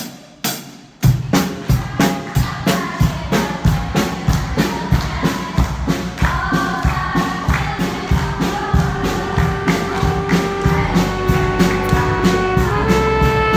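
Instrumental intro of a Christian gospel song: a steady beat of about two hits a second comes in fully about a second in, under sustained chords that build gradually.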